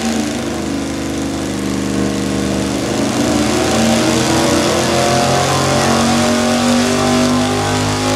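383 small-block Chevy V8 with a cross-ram dual four-barrel intake, running hard under load through an engine-dyno pull. Every carburettor jet has just been leaned to a 68.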